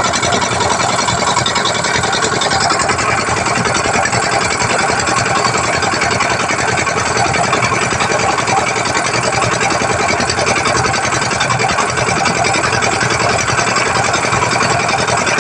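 An engine running steadily at a constant speed with a fast, even chatter, such as a small boat's motor underway.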